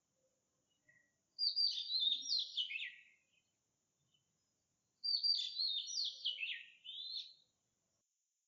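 A magpie calling: two phrases of quick clear notes sliding up and down in pitch, about a second and a half to two and a half seconds each, separated by a pause of about two seconds.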